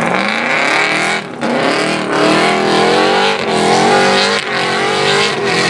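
Off-road prerunner truck engine revving hard, its pitch climbing and dropping back several times, with a brief break about a second in.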